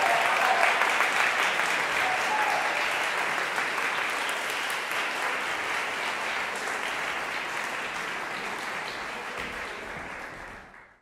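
Audience applauding, steady at first and then slowly dying away, fading out right at the end.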